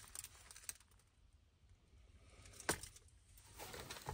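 Faint rustling of a gloved hand digging through dry mouse-nest material in a metal glove box, with one sharp click a little past the middle.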